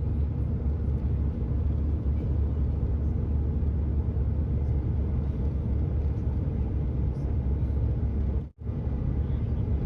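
Steady low rumble of airliner cabin noise on descent, broken by a brief cut about eight and a half seconds in.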